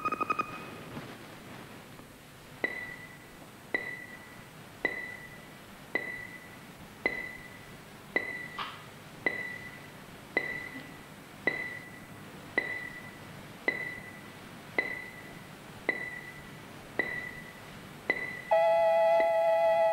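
Electronic sound effects of a futuristic room system: a short two-tone beep, then a click with a short high electronic ping about once a second. Near the end a sustained, several-toned electronic door buzzer sounds, signalling someone at the door.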